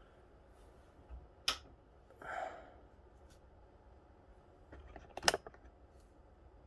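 Handling sounds on a bench: a sharp click, a short rustle, then a quick cluster of clicks near the end.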